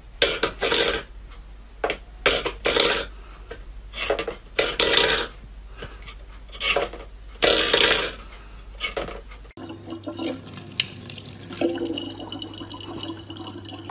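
Stainless steel bowl clattering and scraping on a wooden floor in about six short bursts as a cat paws at it. Near the end a tap runs steadily, splashing.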